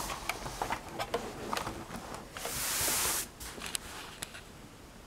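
Handling noise: scattered light clicks and knocks as plastic toy tanks are shifted about on a fabric play mat and the camera is moved, with a short rustle about two and a half seconds in and a few more clicks after it.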